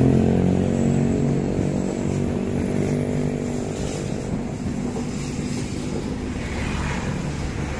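Passenger train coaches rolling past below, a steady rumble of wheels on rail, while the hum of the CC 201 diesel locomotive's engine fades away over the first couple of seconds as it pulls off toward the station.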